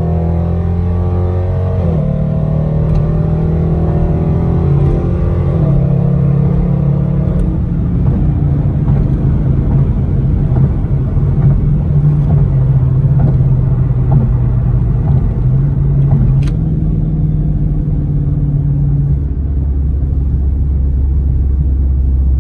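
Dodge Charger R/T's 5.7-litre Hemi V8 and road noise while driving. In the first six seconds the engine pitch climbs and steps down twice, like upshifts under acceleration; after that it runs more evenly at speed.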